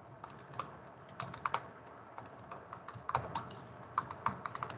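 Typing on a computer keyboard: irregular keystrokes, some in quick runs, with short pauses between them.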